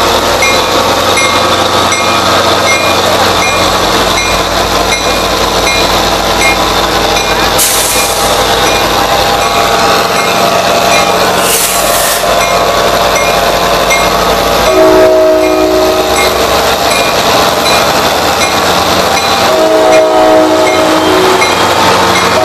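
Metro-North diesel locomotive and its train passing close, a steady loud rumble and rattle of engine and wheels, with a bell dinging repeatedly in the background. About fifteen seconds in the horn sounds a short chord, then a longer one about five seconds later.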